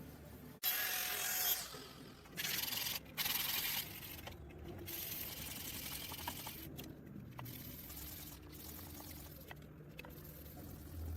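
Abrasive rubbing on a steel blade during finishing: three loud scraping strokes of about a second each in the first four seconds, then quieter steady rubbing.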